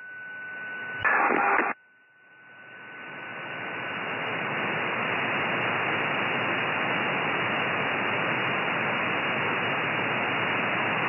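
Hiss of an SSB receiver on an empty 13 cm (2320 MHz) channel, received through an RTL-SDR dongle and microwave down-converter. The hiss swells up over the first few seconds as the slow AGC recovers after the strong signal drops out, then stays steady. A faint steady whistle runs through the first few seconds, and a brief burst of received signal comes about a second in.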